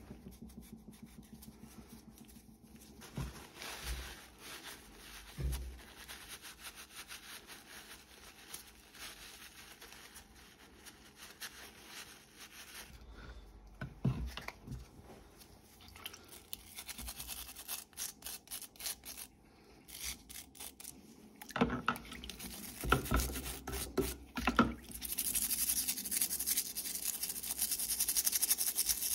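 Brush scrubbing secateurs blades in a bucket of soapy water, a steady scrubbing over the last few seconds. Before that, small parts are handled on a wooden bench, with a few knocks and a cluster of clunks shortly before the scrubbing starts.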